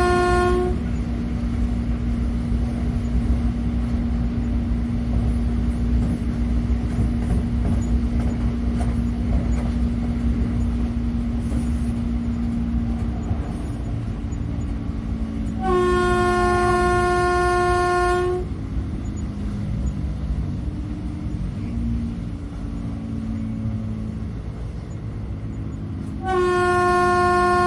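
Train horn sounding one steady note in long blasts: one ending just after the start, one of about two and a half seconds in the middle, and one starting near the end, over the continuous low rumble of a running train.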